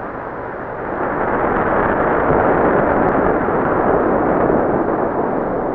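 Steady, dull rushing noise with no distinct events in it, swelling a little from about a second in and easing near the end.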